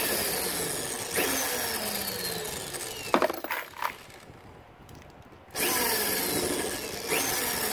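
Power drill spinning a World's Finest Trimmer cutter as a .223 brass case is pressed in and trimmed to length, a grinding, whirring run whose whine slides down in pitch. It stops about three seconds in, a few clicks follow as the case is swapped, and the drill starts again about two seconds later on the next case.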